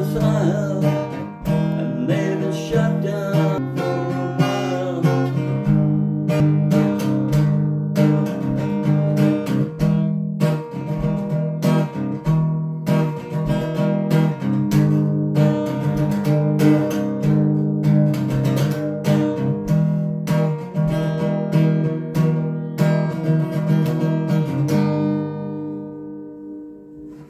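Acoustic guitar strummed in steady chords as the song's instrumental ending; the strumming stops near the end and the last chord rings and fades away.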